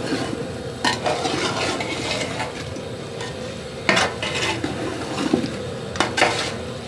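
Metal spoon stirring and scraping chicken and spices around a large metal pot, clanking against the pot about a second in, at four seconds and twice near six seconds. The masala sizzles steadily in the oil underneath.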